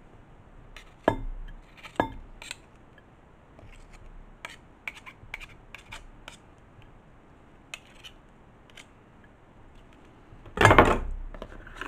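Metal garlic press clicking and knocking against a ceramic casserole dish as garlic cloves are squeezed through it and the pulp is tapped off: a few sharp clicks, then a run of lighter ticks, then a brief louder clatter near the end.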